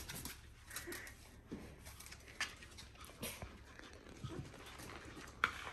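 Faint scattered sounds from week-old Border Collie puppies: a few short soft squeaks among light rustles and taps.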